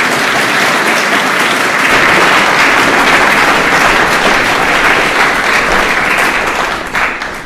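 Audience applauding, a dense crowd clapping that fades out near the end.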